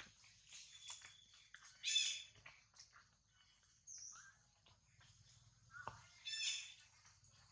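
Two short, high-pitched animal calls, each with several tones stacked, about four seconds apart, over faint rustles and small clicks.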